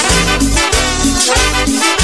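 Ecuadorian cumbia dance music playing loud, with a pulsing bass line and a melody over it.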